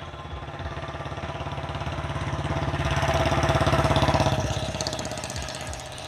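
An engine running with a fast, even pulsing beat, growing louder to a peak about four seconds in and then fading.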